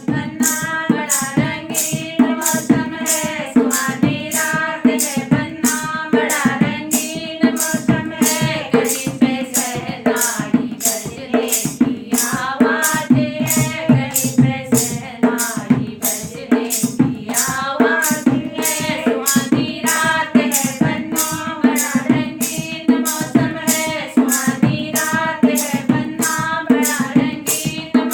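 Singing of a Hindi banna-banni wedding folk song, with a drum and a rattle keeping a steady beat of about three strokes a second.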